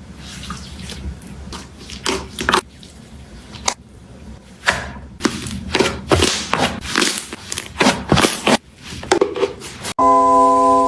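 Hands squishing and working slime: an irregular run of sticky smacks and squelches, some short and some drawn out.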